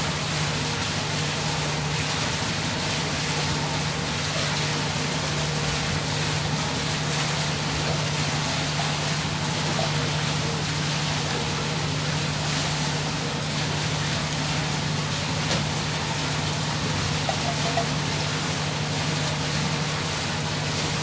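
Steady low machinery drone with an even hiss over it, unchanging throughout: the running of a moored ship's engine or generator alongside the quay.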